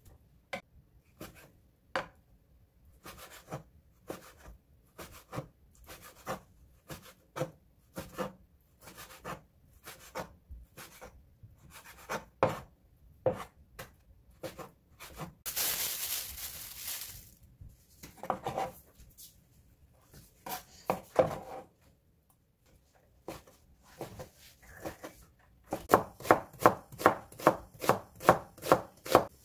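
Chef's knife cutting on a wooden cutting board: irregular strikes as meat is sliced, with a brief scraping noise about halfway through. Near the end the cuts speed up into a quick, even run of about three strikes a second as an onion is julienned.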